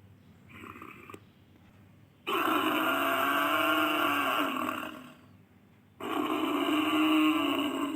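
Sound effect of a Pelorovis, an extinct giant buffalo: a short faint call, then two long, loud calls of about two and a half seconds each, separated by a pause.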